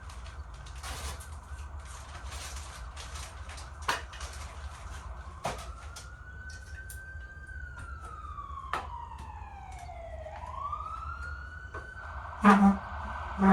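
An emergency vehicle siren wailing, its pitch slowly rising and falling. Scattered sharp clicks run through it, and two loud knocks come near the end.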